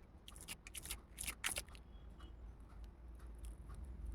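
Faint handling noises, a scatter of light clicks and rustles that cluster in the first second and a half, over a faint steady low hum.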